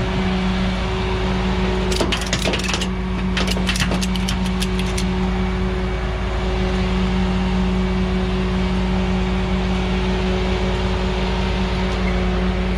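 Tow truck's diesel engine running steadily with a level hum, and a quick run of sharp metallic clicks and clanks about two to five seconds in.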